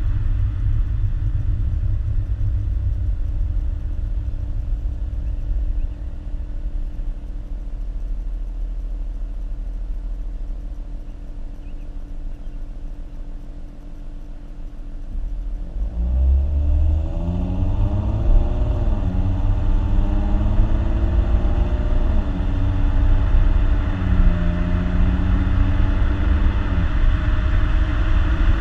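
2014 Ford Mustang's 3.7-litre V6 on its stock exhaust: a low, steady drone for about fifteen seconds, then the engine note rises as the car accelerates. The pitch drops back at each of about three gear changes and climbs again.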